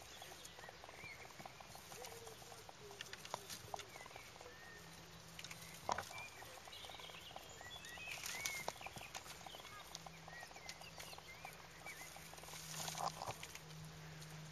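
Faint scattered clicks and cracks of dry twigs as a kudu bull works its spiralled horns through a pile of cut branches, with one sharper crack about six seconds in. Small birds chirp now and then.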